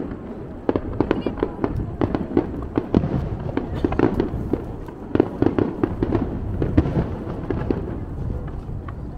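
Fireworks display going off, a dense run of quick pops and crackles over a low rumble.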